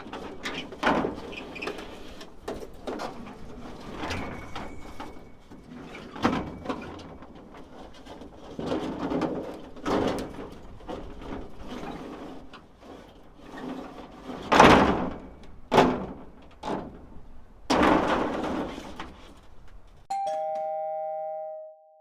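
Irregular bursts of noise, the loudest about two-thirds of the way through. Near the end comes a two-note ding-dong chime that rings on and fades out.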